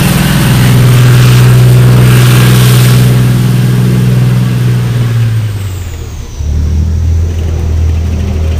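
An M60 main battle tank's diesel engine running under load as the tank drives on its tracks, with track clatter heard loudest in the first few seconds. About six seconds in, the engine note drops lower as the throttle eases off.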